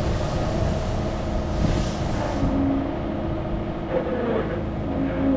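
A steady low rumble with a faint hum running through it.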